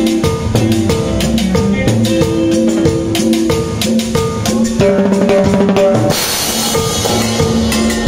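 Live Latin-style band music with a drummer playing drums with sticks in quick rhythmic strikes over sustained pitched backing. A cymbal crash about six seconds in rings for nearly two seconds.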